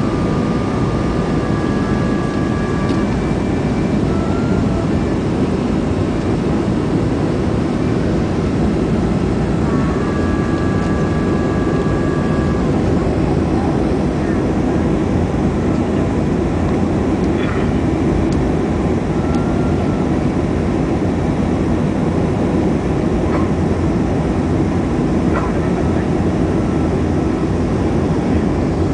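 Steady cabin noise of a Boeing 737-400 in flight, heard from a window seat over the wing: a loud, even rush of its CFM56-3 jet engines and the airflow past the fuselage. A few faint, brief ticks and tones sit over it.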